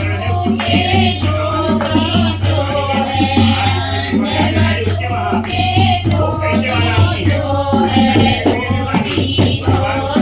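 A Kumauni badhai geet, a congratulatory folk song, sung with hand-drum and jingle percussion keeping a steady beat.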